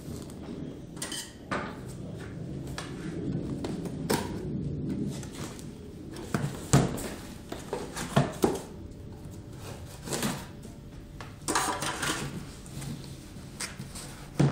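Cardboard shipping box being handled and opened by hand, its tabs pulled free: irregular knocks and clicks with rustling, the sharpest knocks a little after halfway.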